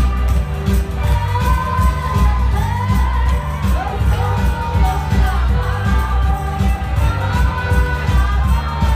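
Loud dance music with a strong, regular bass beat and a singing voice carrying the melody.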